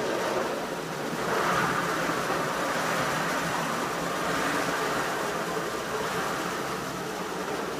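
Wooden carousel table loaded with small workshop machines being turned by hand, giving a steady rolling noise with a faint low hum under it.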